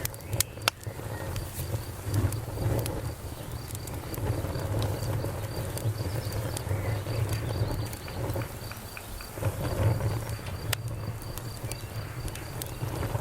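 Campfire of burning wood crackling, with sharp pops: a couple of loud ones near the start and another near the end, over a low rumble. Crickets chirp steadily at a high pitch throughout.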